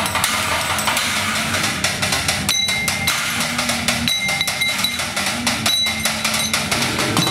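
Fast techno-style drumming on an improvised kit of pans, pot lids, buckets and scrap metal sheets, a dense run of rapid sharp strikes. A bright metallic ringing tone comes in three times, about two and a half, four and six seconds in.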